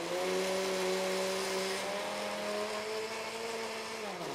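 Countertop blender motor running steadily as it blends banana, almond milk and oat flour pancake batter, then switched off near the end, its pitch falling as it spins down. The batter is thick enough to make the blender labour, so it is stopped to be stirred.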